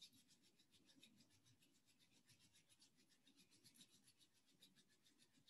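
Palms being rubbed briskly together to warm them: a faint, quick, even swishing of skin on skin, several strokes a second.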